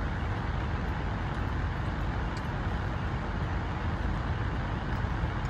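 Steady car-cabin noise: a low rumble with an even hiss over it, nothing standing out.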